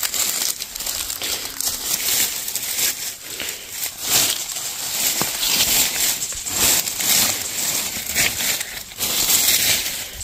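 Irregular rustling and crackling of leaves and plant stems being pushed aside and handled, in uneven surges.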